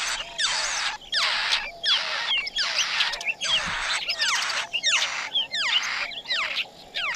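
Laughingthrush nestlings begging for food from the parent at the nest: a rapid, unbroken run of high chirps, several a second, each sliding downward in pitch.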